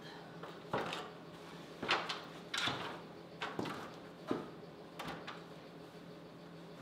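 A man's steps on the rungs of a stepladder as he climbs down, and the ladder knocking as he takes hold of it to move it: about six separate clunks, each a second or less apart.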